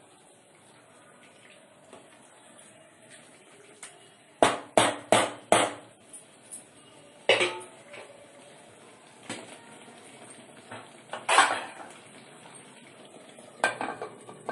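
Metal cookware clanking at a pressure cooker on the stove: a quick run of four clanks about four seconds in, then single clanks a couple of seconds apart, the loudest about eleven seconds in, as the pot and its lid are handled.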